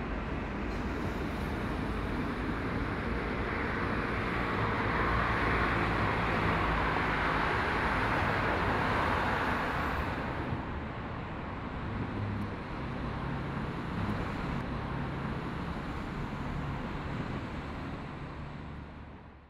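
Road traffic: a steady rush of passing vehicles with a low engine rumble, swelling for a few seconds as a vehicle goes by closer, then easing and fading out at the end.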